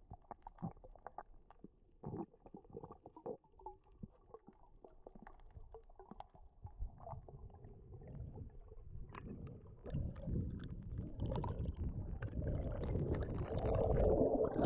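Muffled underwater sound through a GoPro's waterproof housing: scattered faint clicks and crackles, then a low rush of moving water that builds from about halfway and is loudest near the end, as bubbles stream past the camera.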